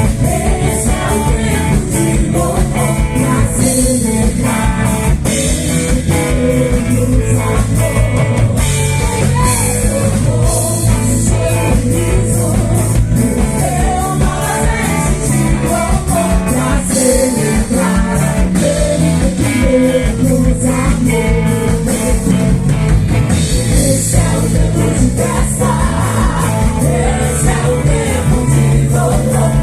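Live Christian rock band playing a song: a singer over electric guitar, bass and drums, with a steady beat.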